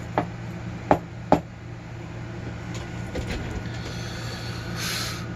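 Small hard parts knocked out of a pinning tray onto a work surface: a few light clicks, then two sharp knocks about half a second apart. A steady low electrical hum runs underneath, with a brief hiss near the end.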